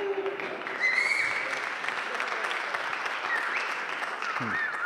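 Audience applauding, with a few whistles, in response to a joke.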